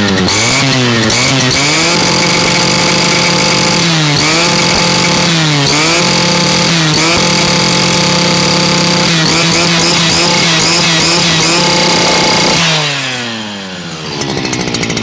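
Stihl FS230 brush cutter's 40 cc two-stroke engine running at high revs, warming up after starting; the throttle is eased off and reopened several times so the pitch dips and returns. Near the end the revs fall away.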